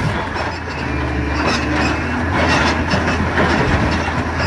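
Heavy machinery with its engine running steadily under a low hum, with irregular scraping and rattling noise over it.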